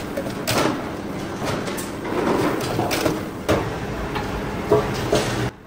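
Metal fabrication workshop noise: a steady noisy din with several sharp knocks through it, cutting off suddenly near the end.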